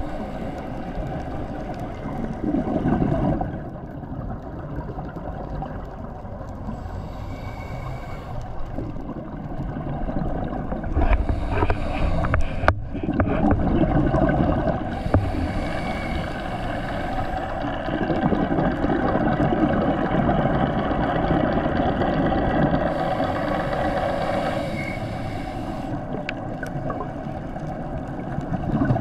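Underwater noise picked up through a camera housing on a scuba dive: a muffled rush of bubbling water, typical of divers' exhaled regulator bubbles, that swells and fades every few seconds, with a single sharp click partway through.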